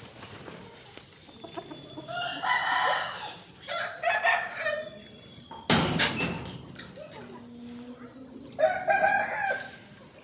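Aseel roosters crowing: harsh pitched calls about two and four seconds in, and another near nine seconds, with a sudden loud noise just before six seconds.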